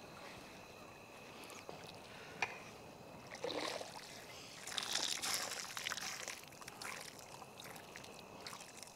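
Large perforated skimmer scooping half-boiled rice out of a pot of hot water, the water sloshing and draining back through its holes, faint and loudest around the middle. A sharp clink about two and a half seconds in.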